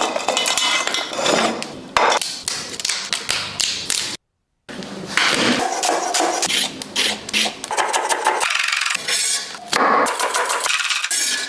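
Rapid, rhythmic metal-on-metal clanging of kottu blades chopping roti and crab on a flat iron griddle, with a brief silent break about four seconds in.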